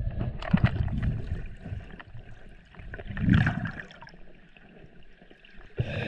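Water splashing and gurgling around a camera as a snorkeller moves through a creek. It comes in irregular bursts, with one loud swell of splashing about three seconds in, then quietens.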